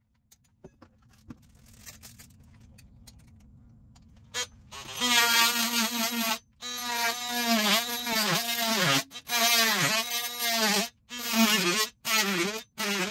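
Cordless oscillating multi-tool plunge-cutting into a plaster ceiling: a high buzz that starts about four seconds in, its pitch sagging as the blade bites into the plaster, stopping and restarting several times. Before it, only a few faint handling clicks.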